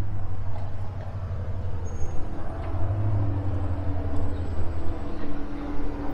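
Motor vehicle traffic close by: a steady low engine rumble, with a steady hum joining about two seconds in.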